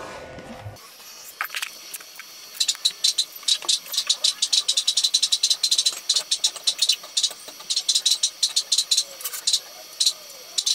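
Ratchet wrench clicking in quick runs that stop and start, as the bolts holding a steel window grill to the wall are tightened.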